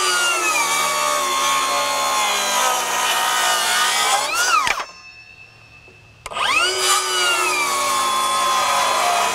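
Milwaukee M18 FUEL 6-1/2-inch brushless cordless circular saw, on a 5 Ah battery, making two bevel cuts through a board. The motor whine sags in pitch under load and rises as the blade clears the wood, then stops about five seconds in. After a second and a half it spins up again and sags into the second cut.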